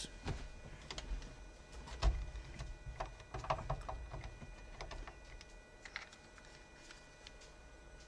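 Light clicks and knocks of a RAM mount arm and cradle being handled and taken off a vehicle dash, with a dull knock about two seconds in and a quick run of clicks about three and a half seconds in.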